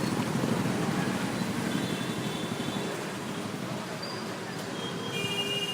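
City street ambience: a steady wash of traffic noise with a low rumble, easing a little in the second half, and a few brief high-pitched squeaks near the end.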